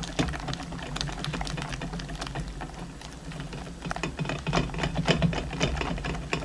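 Wire whisk beating eggs and sugar in a glass bowl, its wires clicking and rattling rapidly against the glass, several strokes a second, loudest about five seconds in. The glass bowl sits in a steel bowl of warm water to dissolve the sugar.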